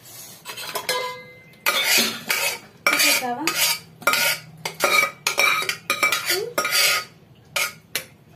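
A spoon scraping and knocking inside a metal pressure cooker as cooked dal is scooped out. After a quiet first second or so, it becomes a run of quick, loud scrapes, about two a second.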